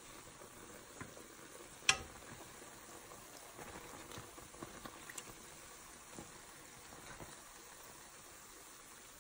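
Patonggo dough sticks deep-frying in hot oil, a steady sizzle, with a metal skimmer and tongs clicking against the pan as the pieces are turned; one sharp click about two seconds in, then a few lighter ones.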